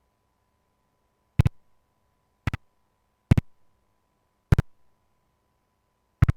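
Five sharp double clicks at uneven spacing, each a quick pair of knocks with a short tail, over a faint steady high-pitched tone.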